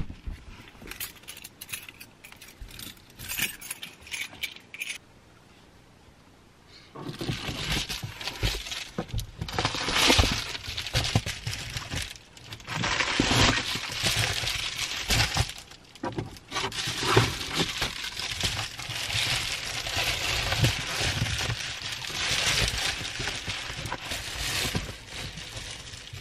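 Rustling and clattering of fabric and small items being handled and shifted about inside a car, with small clinks. A few scattered knocks come first, then a brief lull, then nearly continuous rustling from about seven seconds in.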